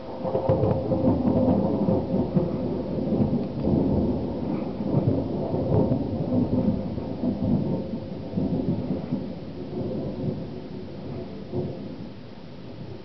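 Long rolling peal of thunder from a monsoon thunderstorm, loudest over the first few seconds and then rumbling slowly away over about ten seconds.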